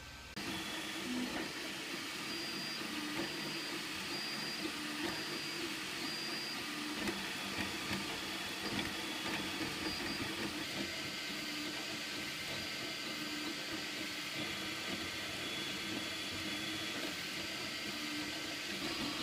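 JGAURORA Z-603S desktop FDM 3D printer running a print: the stepper motors whir in held tones that shift in pitch as the print head moves, over the steady hiss of its cooling fans.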